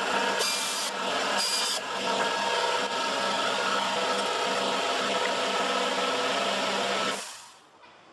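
Hyundai Sonata V6 engine idling steadily with the hood open, then switched off about seven seconds in, its sound dying away over half a second.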